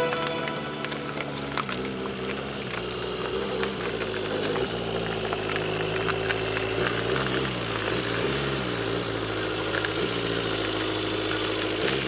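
An engine running at a fairly steady speed, its pitch drifting slightly up and down. Guitar music fades out at the very start.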